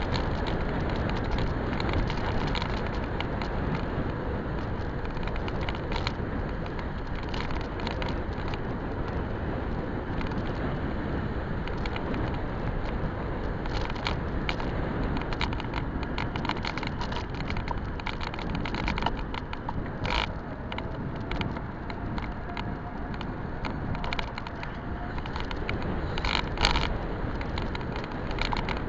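Electric bike riding along a paved path: a steady rumble of wind and tyres with frequent small clicks and rattles, and a couple of sharper knocks in the last third. A faint whine rises slightly for a few seconds about two-thirds through.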